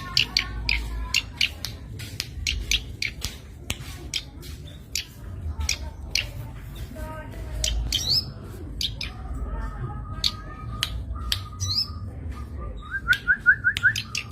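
Zitting cisticola (cici padi) calling: a long series of sharp, high, clicking notes, with short trilled phrases later on and a quick run of rising notes near the end.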